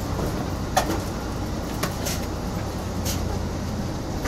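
Steady low rumble of a moving passenger train heard from inside the car, with a few short sharp clicks or squeaks, the loudest about a second in.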